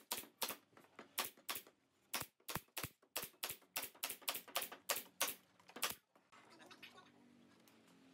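Pneumatic nail gun firing rapidly into pine slats, a quick run of sharp shots about three a second that stops about six seconds in.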